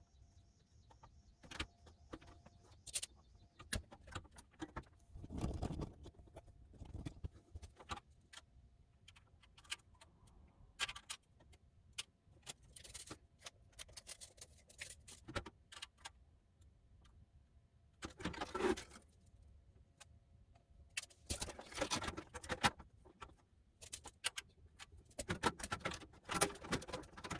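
Small metal parts and tools being handled: scattered clicks and clinks, with a few short bursts of rattling.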